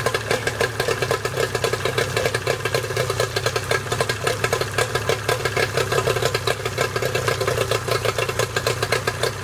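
Nissan 9.9 hp two-stroke twin-cylinder outboard motor running steadily with an even pulsing exhaust beat.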